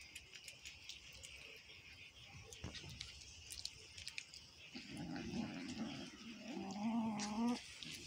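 A domestic cat eating with soft clicks, then, about two-thirds of the way in, a cat starts a low, wavering growl lasting a few seconds, guarding its food as another cat pushes in.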